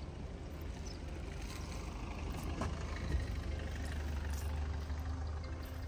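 Low, steady rumble of an engine running, swelling a little in the middle.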